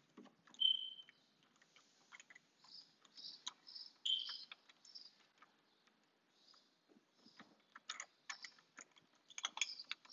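Faint scattered clicks and light metallic clinks of door knob lockset parts being handled and fitted into the door, with two short metallic rings, one about half a second in and another around four seconds in.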